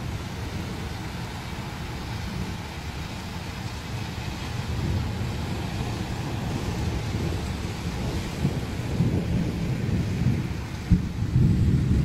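Thunder rumbling over steady rain. It builds in the last few seconds to a louder peak, with one sharp crack near the end.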